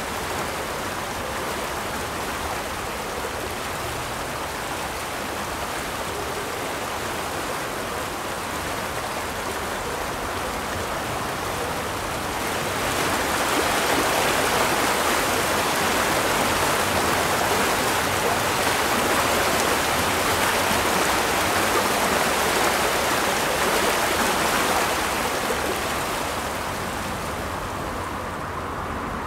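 Swollen floodwater river rushing and pouring over a dam: a steady rush of water that grows louder about thirteen seconds in and eases again near the end.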